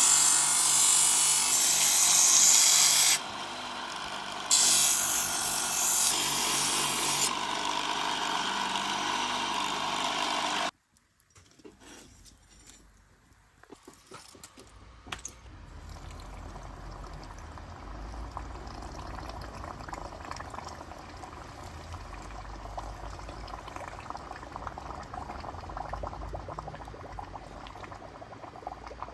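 A power tool runs loudly for about the first ten seconds, easing briefly near three seconds, then cuts off suddenly. After a short lull a quieter, steady crackling noise with a low rumble sets in and continues.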